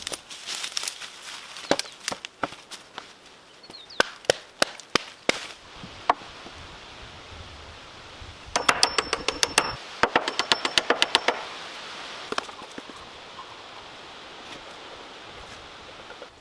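Sharp knocks and taps of hands-on building work, scattered at first, then two quick runs of rapid taps, about eight or ten a second, a little past halfway.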